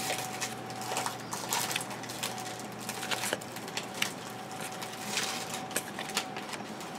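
A stack of 2012 Score football trading cards handled and flipped through by hand: a run of irregular soft clicks and rustles as card edges slide and slap against one another.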